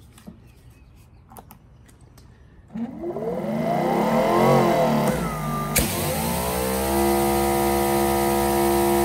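Greenworks Pro GPW3000 electric pressure washer's brushless motor and pump starting up about three seconds in with a rising whine, its pitch wavering as pressure builds. About six seconds in a sudden loud hiss of water spraying from the turbo nozzle joins, and the motor settles into a steady hum as the pressure holds at about 1000 PSI.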